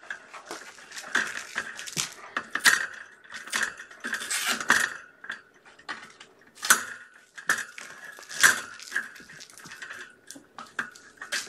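Plastic tiered ball-track cat toy clattering as kittens bat the balls around its tracks: an irregular run of clicks and rattles.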